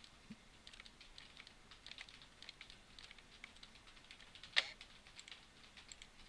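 Faint clicking of a computer keyboard and mouse, scattered light taps with one sharper click about four and a half seconds in.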